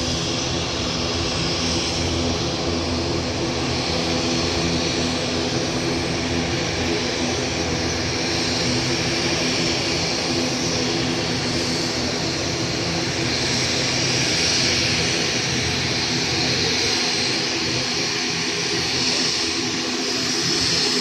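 Aircraft engines droning steadily: a twin-engine turboprop airliner, an ATR 72 type, running with its propellers turning as it taxis, mixed with a jet airliner's engine noise on its takeoff run farther off.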